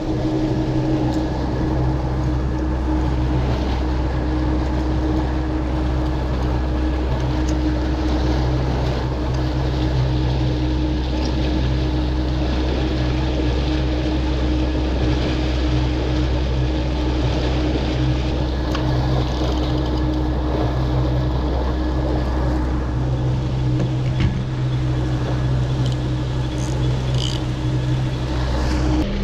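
Suzuki outboard motor running steadily at constant speed, a low even hum, with water rushing past the hull and through the wake.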